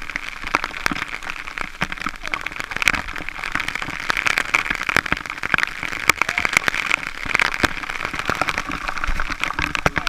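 Waterfall water pouring onto and around the camera at close range: a steady rush of falling water with a dense, irregular crackle of drops spattering on the lens housing.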